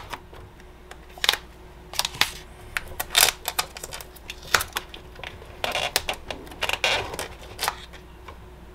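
Scattered sharp clicks and small metal ticks from hand work on a lithium battery's BMS terminal, as a loose bolt that was never threaded into the BMS is worked out. There is a denser run of clicks about six to seven seconds in.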